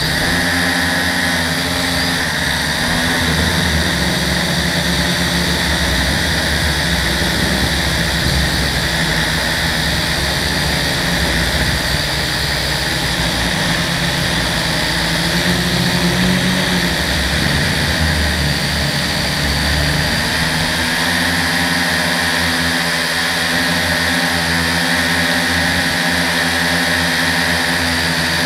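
Electric motors and propellers of a small remote-controlled drone whining steadily as it flies, heard from its on-board camera. A rough low rumble under the whine eases off about two-thirds of the way through.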